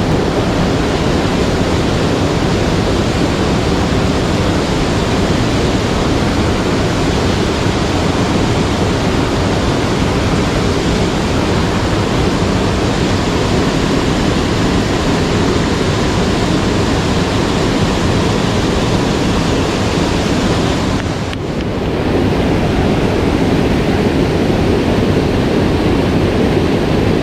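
Mountain stream water rushing steadily over rocks, close by, with a brief dip about three-quarters of the way through.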